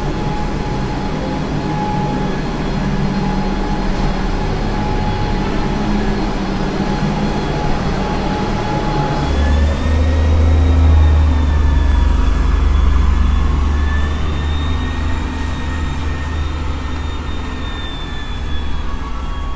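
A motor vehicle's engine running. About nine seconds in, the sound grows deeper and louder, with a whine that rises and falls slightly.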